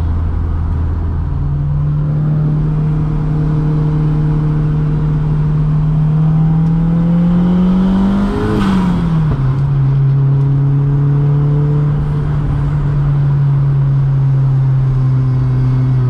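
Turbocharged 1.8-litre four-cylinder engine of a Mk2 Golf GTI running through a 76 mm exhaust under way: its pitch steps up a little over a second in and climbs steadily, then drops sharply at a gear change about halfway through, with a short burst of noise, and holds steady after.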